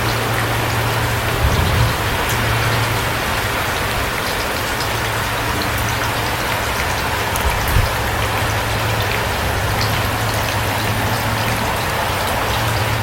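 Steady rain, with individual drops ticking over the even wash of the downpour and a low steady rumble underneath. Two brief low thumps come about a second and a half in and again near eight seconds.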